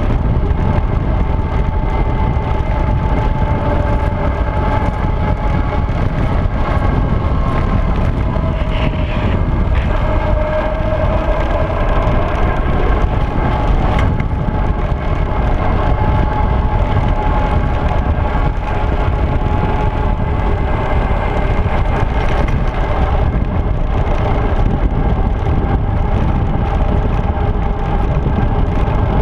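Steady wind rush on a handlebar-mounted action camera's microphone as a road bike rolls along asphalt, mixed with tyre noise and a few faint whining tones that drift slightly in pitch.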